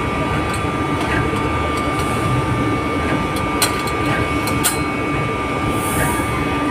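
Steady machinery hum with a constant whine, typical of running pumps and motors at a pumping station. A few sharp metal clinks from wrenches on flange bolts, the two loudest about halfway through.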